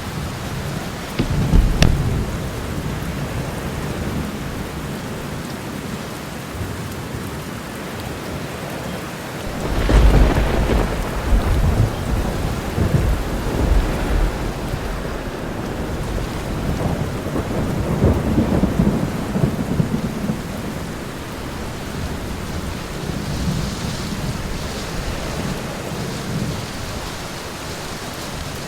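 Thunderstorm: steady rain with rolls of thunder, a sharp crack about two seconds in and the loudest deep rumble about ten seconds in, with further rumbles after it.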